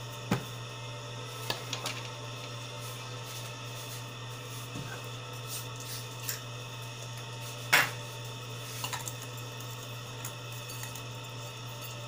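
Switch on a homemade ultrasonic intruder alarm box clicking as it is switched, followed by a few more light clicks and handling knocks. A single sharp click about eight seconds in is the loudest. A steady low hum runs underneath.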